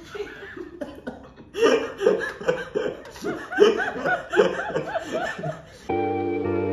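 A woman laughing hard in a long run of quick ha-ha bursts, behind a hand over her mouth. Near the end the laughter stops and background music begins.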